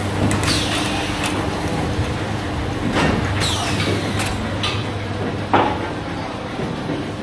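Commercial grapefruit peeling machine running with a steady motor hum, its knife set cycling up and down around the fruit: scraping sweeps that fall in pitch, with a few sharp metal knocks along the way.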